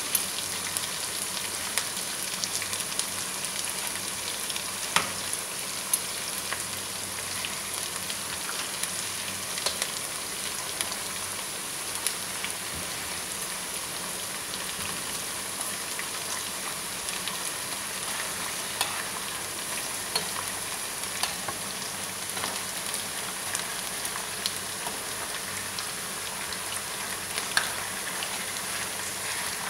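Chicken pieces sizzling steadily as they fry in oil in a pan, with now and then a short click or scrape of a utensil turning them.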